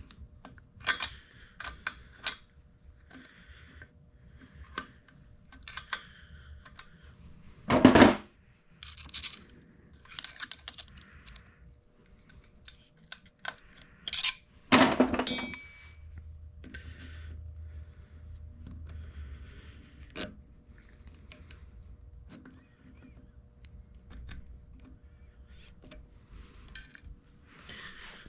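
Small metallic clicks and clinks of hand tools working a cotter pin out of an engine case, with two louder knocks about eight and fifteen seconds in.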